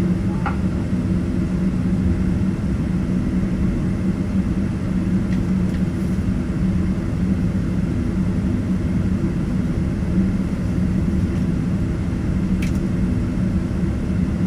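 Steady low rumble with a constant hum inside the cabin of a Boeing 777-200ER taxiing on its GE90 engines.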